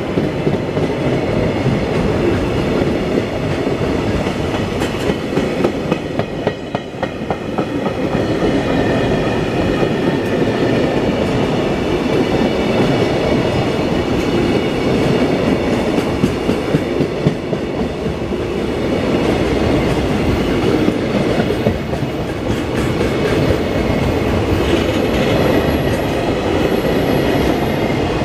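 Container freight train running past close by: the steady rumble of its loaded container flatcars' steel wheels on the rails, with repeated clicking over rail joints. A faint high whine comes in near the end.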